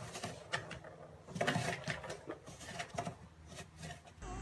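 Irregular rattling and scratching clicks from cats at play with a plastic ball-track toy and a cardboard box.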